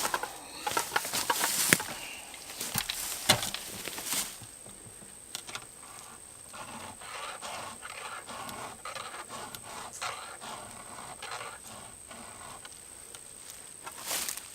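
Hand file rasping across the cutters of a dull Stihl chainsaw chain in repeated short strokes as the chain is sharpened, the strokes louder in the first few seconds.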